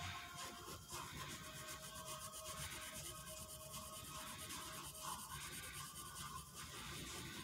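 Sharpie marker tip rubbing and scratching across paper as lines are drawn and dark areas are inked in.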